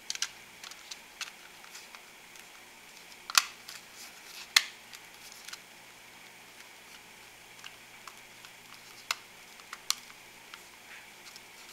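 Plastic thermostat-style CO2 meter housing being handled and fitted against its base: scattered light plastic clicks and taps, the two loudest about three and a half and four and a half seconds in.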